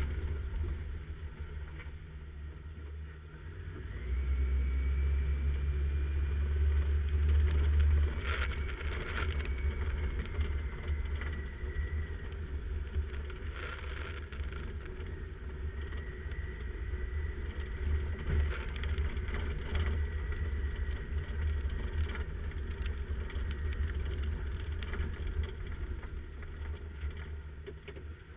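1997 Jeep Wrangler TJ driving on a dirt trail: the engine runs with a steady low rumble that gets louder about four seconds in, with scattered knocks and rattles, heard from a camera mounted outside on the hood.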